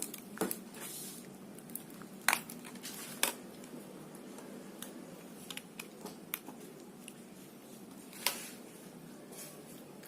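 Hands opening up a small Samsung Keystone 3 feature phone: scattered light clicks and handling noise, with a few sharper clicks, the loudest about two seconds in and about eight seconds in.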